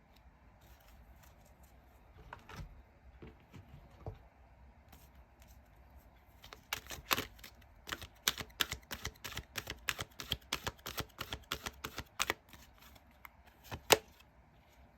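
Tarot cards being shuffled and handled by hand. A few scattered card clicks come first, then a quick run of sharp snaps, about four or five a second, for some six seconds, and one louder snap near the end.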